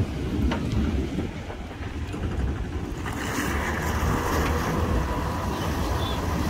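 Wind buffeting an outdoor phone microphone: a dense, uneven low rumble. About three seconds in, a broader hiss joins it.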